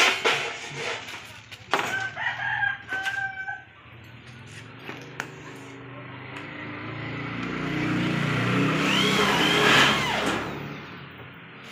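A rooster crowing, with a few sharp metal knocks in the first two seconds. A motor vehicle's engine swells up in the second half, loudest near the end, then fades.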